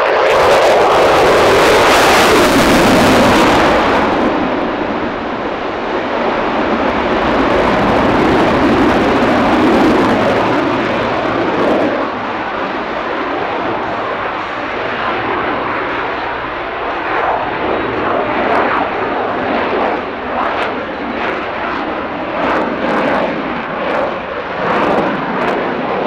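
Lockheed Martin F-22 Raptor's twin Pratt & Whitney F119 turbofans running on afterburner: a loud jet roar. It is loudest over the first four seconds, then goes on a little lower, swelling and fading.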